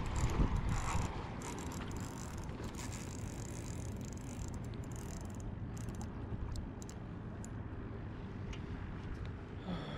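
Runcl Titan II spinning reel clicking and ratcheting under load from a hooked barracuda: a run of short irregular clicks over steady low background noise, which is louder in the first second.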